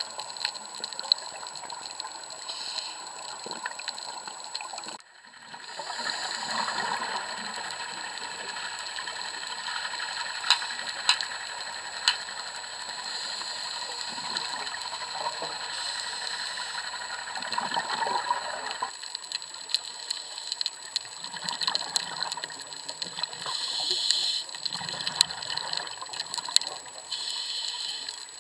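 Underwater sound through an action camera's waterproof housing: a diver's regulator bubbles gushing in bursts over a steady crackle of sharp clicks from the reef. The sound drops out briefly about five seconds in.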